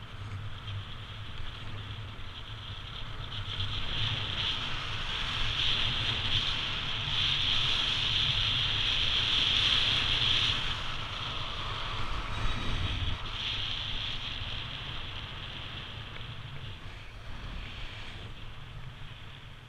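Snow hissing and scraping under a rider's edges while sliding downhill, with wind rumbling on the microphone; it grows louder around the middle and eases off toward the end.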